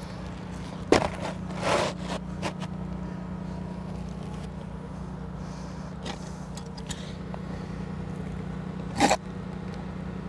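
Asphalt roofing shingle being handled and scraped on the roof deck, with a few short knocks, the sharpest about nine seconds in, over a steady low hum.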